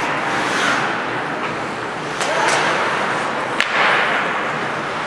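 Ice hockey play in an arena: a steady hiss of skates on the ice and crowd noise, with a few sharp cracks of stick and puck, two close together a little after two seconds and the loudest one about three and a half seconds in.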